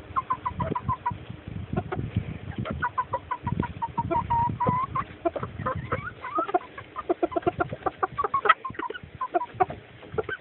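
A flock of chickens clucking, with many short, rapid clucks overlapping and one sharper, louder call about eight seconds in.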